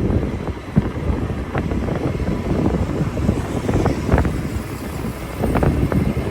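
Wind rumbling and buffeting on the microphone, with a few short knocks.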